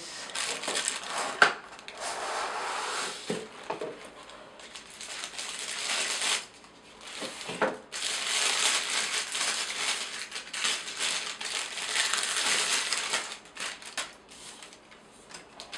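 Plastic bag packaging crinkling and rustling as hands handle and unwrap a camera lens, in several long stretches of rustle with a few sharper crackles, quieter near the end.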